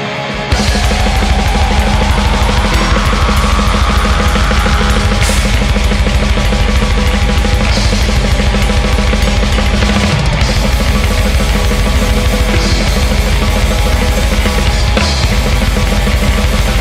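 Black metal recording: a full band with fast, dense drumming and heavy bass drum throughout. The low end drops out briefly and the whole band comes back in about half a second in.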